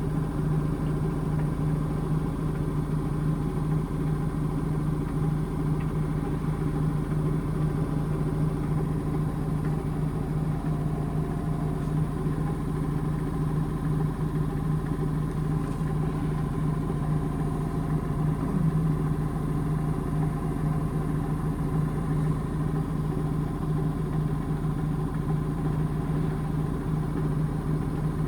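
Indesit IMA862 washing machine spinning at a steady speed during an intermediate spin: an even motor and drum hum that holds constant.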